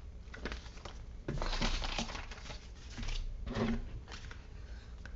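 Paper and card rustling and crinkling as a small packet of documents is handled, in two main bouts with sharp clicks and taps.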